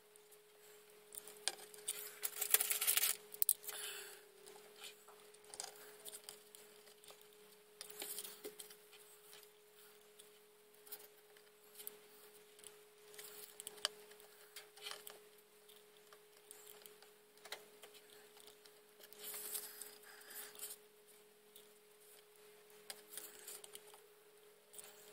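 Quiet handling sounds of gluing small plastic braces into a model's hull with a hot glue gun: soft rustles, light clicks and taps, loudest a few seconds in and again near the end. Under them runs a faint steady hum.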